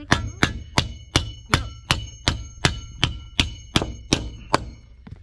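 Claw hammer striking the aluminum wiggle-wire channel at a carriage bolt, about thirteen steady blows at roughly three a second, each with a metallic ring.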